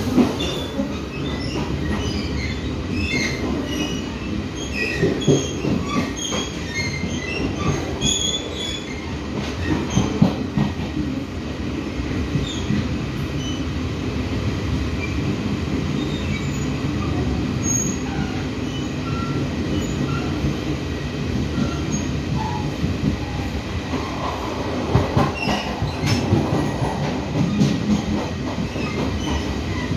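A Chu-Kuang express passenger coach running on the rails, heard from inside by the window: a steady rumble of wheels on track, with many short, high wheel squeals scattered over it. The squeals are thickest in the first ten seconds and again near the end.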